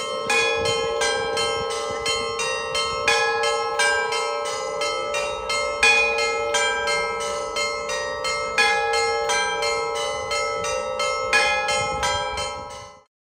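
Church bells ringing a quick peal: several bells of different pitch struck over and over above a steady ring. The peal cuts off suddenly near the end.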